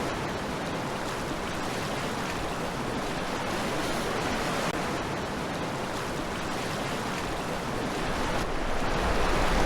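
Steady rush of river rapids, growing louder near the end.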